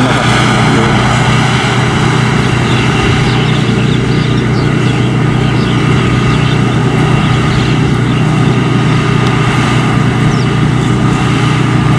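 Kaset Pattana rice combine harvester running steadily while cutting and threshing rice, its engine giving a constant drone with a steady hum of machinery. A few faint bird chirps come over it in the middle.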